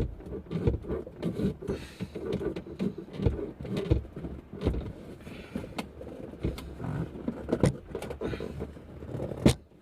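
Irregular knocks, clicks and rattles of the plastic center console trim in a 2000 Lexus ES300 being worked loose by hand, with one sharp snap about nine and a half seconds in.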